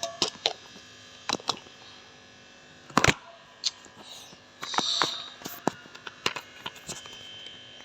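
Handling sounds of a plastic tumbler and its packaging: scattered clicks and knocks, the loudest about three seconds in, and a brief rustle about five seconds in.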